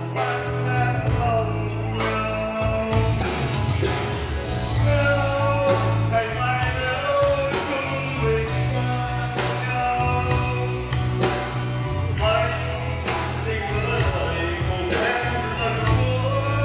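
A man singing a song live into a microphone over keyboard-backed dance music with a steady beat and bass line.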